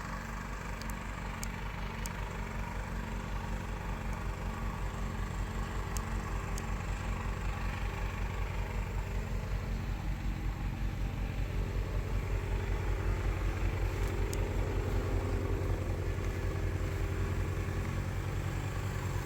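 A motor vehicle's engine running steadily with a regular fast throb, growing slightly louder over the span.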